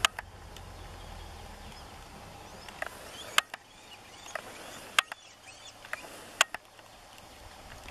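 Outdoor ambience with faint distant bird calls and several sharp clicks spaced a second or two apart. A low rumble fades away in the first couple of seconds.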